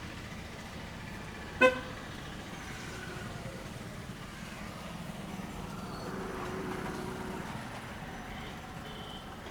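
Street traffic noise with a single short vehicle horn toot about a second and a half in, the loudest sound here. A vehicle passes a few seconds later.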